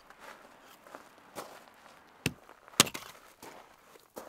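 Hatchet striking and splitting firewood on a chopping block: two sharp chops about half a second apart a little past halfway through, the second the loudest, with a few lighter knocks around them.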